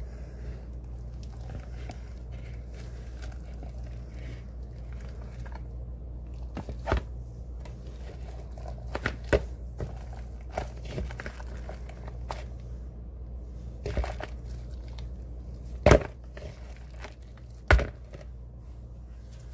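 Leftover melt-and-pour soap film being peeled and crumpled off the inside of a mixing bowl by a gloved hand: soft crinkling with a handful of sharp snaps and clicks, the loudest about two thirds of the way in. A steady low hum runs underneath.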